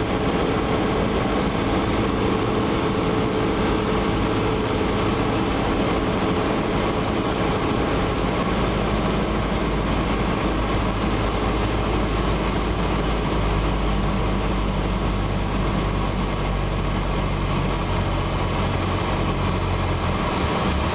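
Cessna 172S's four-cylinder Lycoming IO-360 engine and propeller droning steadily inside the cockpit, mixed with airflow noise, during the final approach and landing. The engine note shifts partway through.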